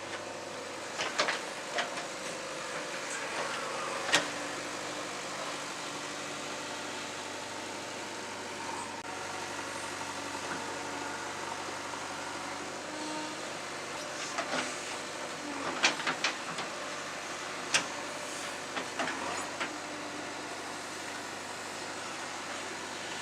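JCB 3DX backhoe loader's diesel engine running steadily, its pitch shifting a couple of times, with a series of sharp knocks scattered through.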